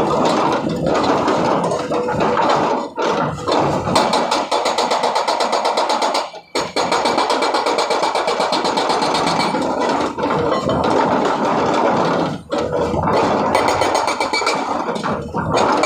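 Hydraulic rock breaker on a Sany SY210 excavator hammering rock with rapid repeated blows, stopping briefly three or four times.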